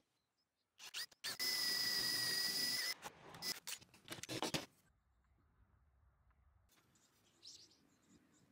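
Makita cordless drill running steadily with a high whine for under two seconds, boring a dowel hole through a wooden guide block into the rail, then stopping abruptly. A few short knocks and clicks follow.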